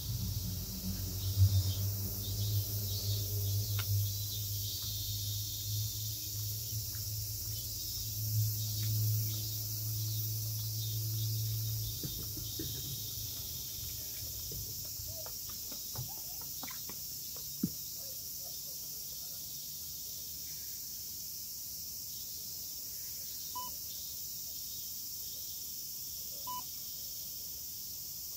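Cicadas singing in a dense, steady, high-pitched chorus. A low steady hum sits beneath it for the first twelve seconds and then fades away. Near the end, short beeps sound about three seconds apart.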